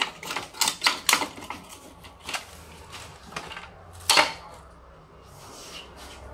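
Sharp plastic clicks and knocks from an HP LaserJet Pro MFP M128fn laser printer being worked on. Several come in quick succession in the first second and a half, and a louder knock about four seconds in.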